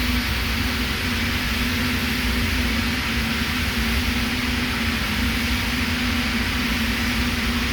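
Electric arc welding on steel pipe: the arc gives a steady, unbroken hiss with a constant low hum underneath.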